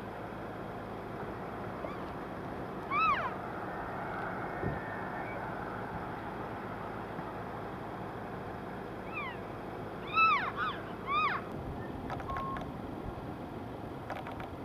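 Elk in a herd giving short, high mewing chirps, each rising then falling in pitch: one about three seconds in, then a quick cluster of three or four near the end, over a steady background hiss.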